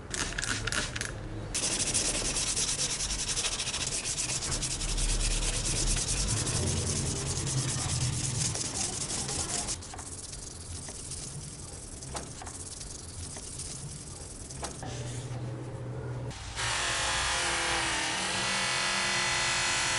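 Sandpaper rubbing back and forth over a steel knife blade, sanding off rust, loud at first and quieter in the second half. Near the end it gives way to a bench-mounted buffing wheel running with a steady hum as the blade is polished on it.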